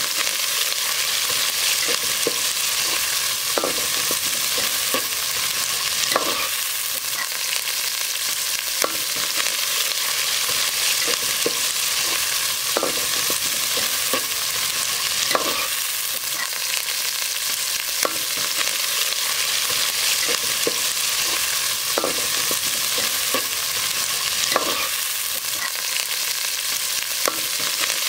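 Sliced onions, green chillies and curry leaves frying in hot oil in an aluminium pot with a steady sizzle, while a metal ladle stirs them, scraping and knocking against the pot every two to three seconds.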